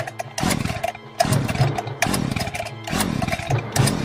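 Background music with frequent percussive hits.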